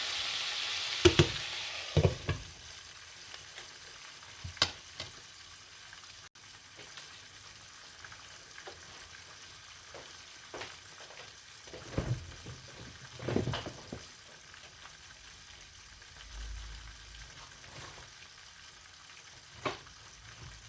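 Chicken frying in hot oil with a steady sizzle, loudest for the first couple of seconds and then settling lower. Scattered sharp knocks and clinks sound through it, about eight in all.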